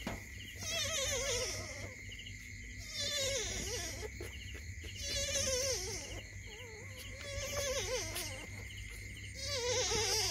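A puppy crying in a series of wavering, whining calls, about five of them, each around a second long and roughly two seconds apart.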